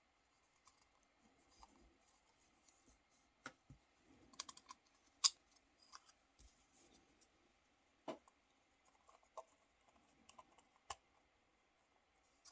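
Nokia 3310 parts being handled and fitted, giving scattered small clicks and taps. There is a quick run of clicks about four and a half seconds in, and the loudest click comes just after five seconds.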